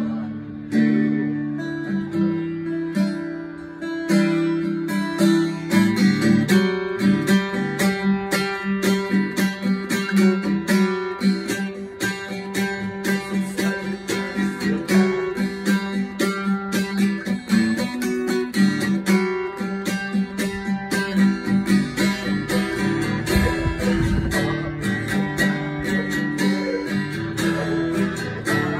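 Acoustic guitar played solo, picked and strummed: a few sparse notes at first, then a busier, steady rhythm from about four seconds in.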